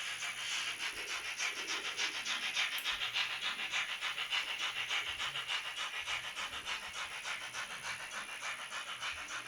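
Sound decoder of an N-scale BR 18 steam locomotive model playing steam chuffs through its small loudspeaker: a quick, even rhythm of hissy chuffs as the model runs.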